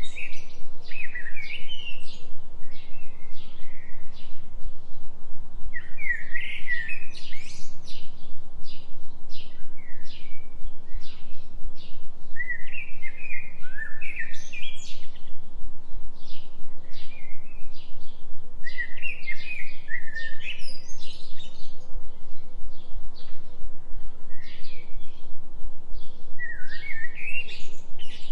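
Songbirds singing: a phrase of quick rising and falling whistled notes about every six seconds, with short chirps scattered in between. Under them runs a steady low hum, the binaural-beat tone of a 3 Hz delta-wave track.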